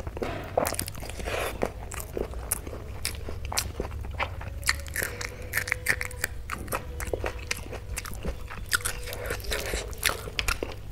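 Close-miked eating by hand: wet chewing with many sharp mouth clicks and smacks as boiled pumpkin and a handful of dal and rice are eaten. Near the end, fingers mix rice and dal on a metal plate.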